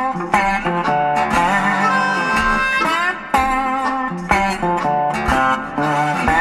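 Background guitar music: plucked notes with sharp attacks, a few of them bending upward in pitch.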